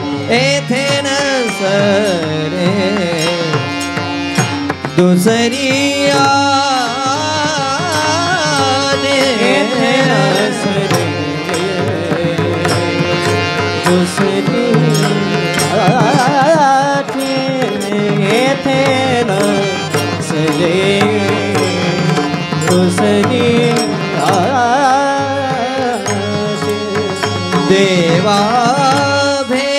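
Marathi kirtan chal, a devotional melody sung by male voices, with small brass hand cymbals (taal) struck in a steady rhythm and instrumental accompaniment.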